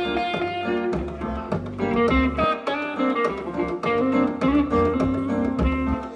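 Live band playing an instrumental passage, with guitar notes over bass and drums.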